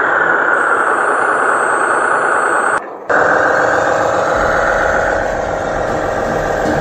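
Truck engine running steadily. The sound cuts out for a moment about three seconds in, then resumes with a deeper hum added in the second half.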